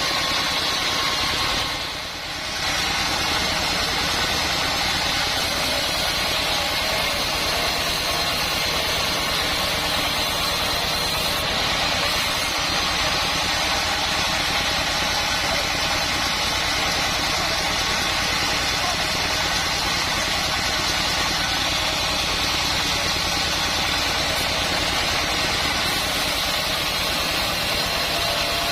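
Band sawmill running: a steady mechanical drone with a thin, steady high whine over it, dipping briefly in level about two seconds in.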